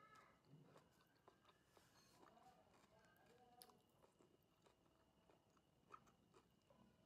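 Very faint chewing of braised pig colon, soft wet mouth sounds, with a few small clicks as a piece is picked from the plate by hand.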